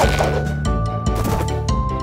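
Cartoon background music with a quick steady beat, bass notes and held melody notes stepping from one pitch to the next.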